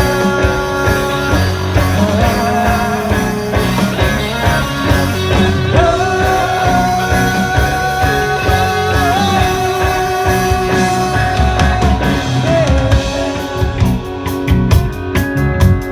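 Rock band music between sung lines, with a long held melody note about halfway through that wavers briefly before it ends.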